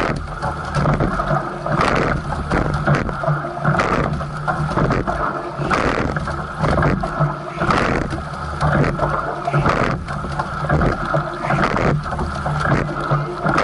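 Racing coxless four rowed at race pace: a sharp knock roughly every two seconds as the oars catch and turn in the oarlocks, over water rushing past the hull and wind. A steady low hum runs underneath.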